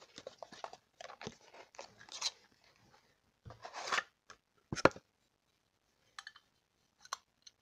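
Unboxing and handling noise: packaging crackling and rustling while a small safe-shaped pencil sharpener is taken out and turned over in the hands, with scattered clicks and one sharper knock about five seconds in.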